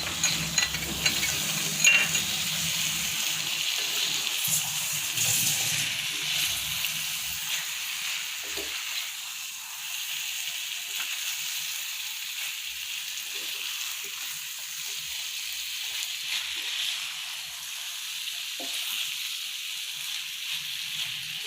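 Chicken and masala sizzling in a cast iron skillet while being stirred and turned, with a few brief knocks of the spatula against the pan. Fuller and louder for the first several seconds, then a softer steady sizzle.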